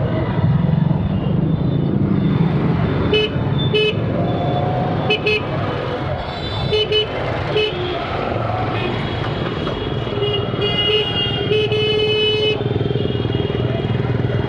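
A TVS Stryker motorcycle's engine runs in slow, congested street traffic, under a steady hiss of traffic noise. From about three seconds in there are repeated short horn beeps, then longer horn blasts near the end.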